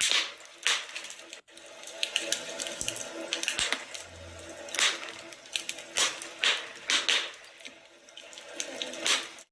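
Wood fire crackling and popping over a steady hiss, with a louder burst of crackle every second or so; the sound cuts out for a moment about a second and a half in.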